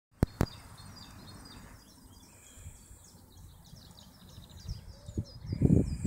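Small songbirds singing, many short high chirps in quick runs. Two sharp clicks right at the start, and a low rumbling buffeting on the microphone that grows loud near the end.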